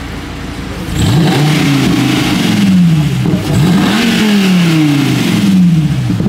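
2013 Dodge Viper SRT's 8.4-litre V10 idling, then revved twice, about a second in and again near the middle. Each rev climbs quickly and then falls slowly back toward idle.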